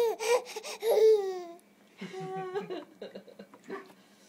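Baby laughing in quick, rhythmic bursts, ending about a second and a half in with a long falling note; a shorter squeal follows, then quiet.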